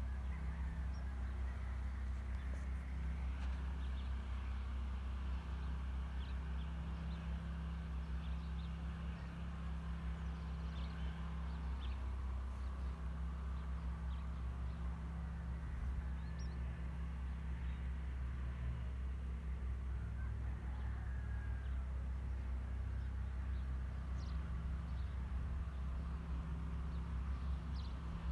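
Countryside ambience: birds singing and chirping faintly over a steady low rumble.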